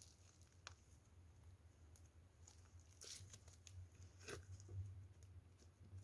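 Orange slime being handled, heard only faintly: a few scattered sticky pops and crackles, clearest about 3 and 4 seconds in, over a low steady hum.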